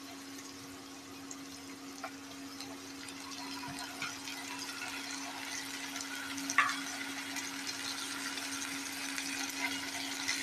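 Sliced onions and curry leaves sizzling softly in hot oil in a non-stick kadai, the sizzle slowly growing louder as ginger-garlic paste goes into the pan. A few light clicks sound over a steady low hum.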